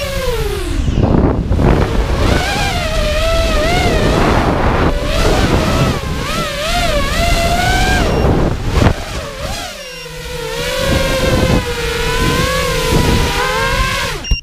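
FPV freestyle quadcopter's brushless motors and propellers whining in flight, heard from the GoPro on board, with rushing air. The pitch keeps rising and falling with the throttle, drops away briefly about a second in and again about ten seconds in, and cuts off suddenly at the end.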